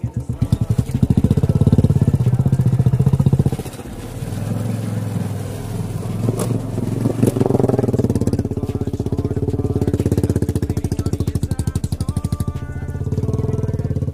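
Royal Enfield Classic 350's single-cylinder engine revving hard as the motorcycle pushes through deep mud and water, then easing back and running steadily as it rides off along the rutted track.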